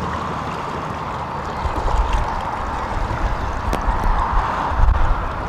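Choppy water lapping and splashing in a strong wind, a steady rushing wash, with one sharp click about two-thirds of the way through.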